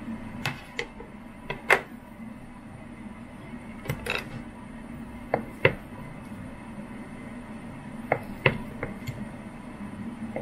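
Kitchen knife cutting through a slab of firm tofu and knocking on a wooden cutting board: about a dozen sharp taps at uneven intervals, often in close pairs, over a steady low hum.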